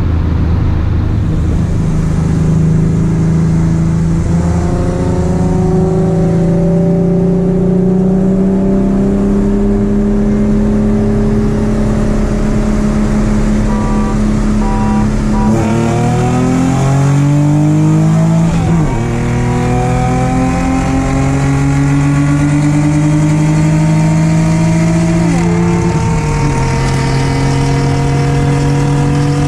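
Car engine accelerating under load, its pitch climbing slowly and then falling sharply at each upshift, twice in the second half, before climbing again.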